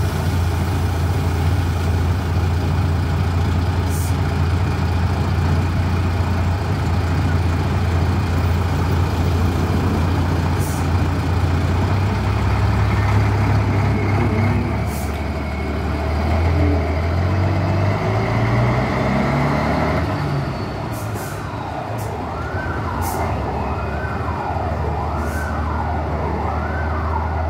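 Karosa B 732.20 city bus's rear-mounted LIAZ six-cylinder diesel idling steadily, then revving up through rising pitches as the bus pulls away. From about twenty seconds in, a wailing siren, rising and falling about once a second, sounds over the engine as the bus recedes.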